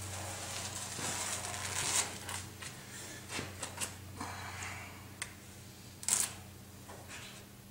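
Masking tape being peeled off a body panel along a fresh seam-sealer line, giving irregular crackles, ticks and rustles. A low steady hum runs underneath.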